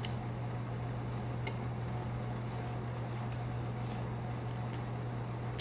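Soft close-up chewing of sushi, a few faint wet clicks of the mouth, over a steady low electrical hum.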